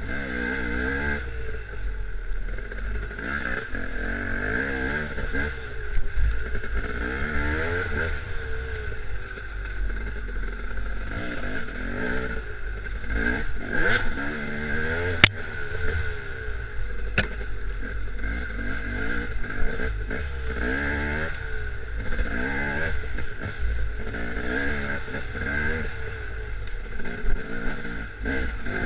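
Dirt bike engine revving up and falling back over and over as it is ridden along a wooded trail, heard from a camera on the bike with steady wind rumble. A few sharp knocks come near the middle.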